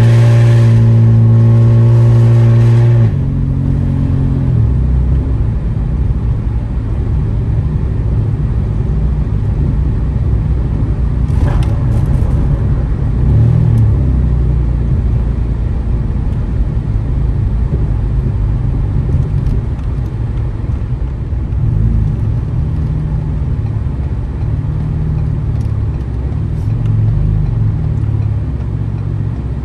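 Straight-piped, catless 2015 Ford Taurus Limited exhaust, heard from inside the car while driving. It holds a loud, steady drone for about the first three seconds, then drops to a lower, uneven rumble as the car cruises on.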